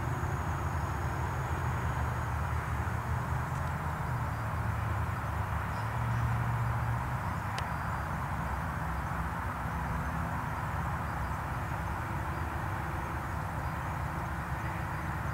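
Steady low rumble of background noise, with a faint click about seven and a half seconds in.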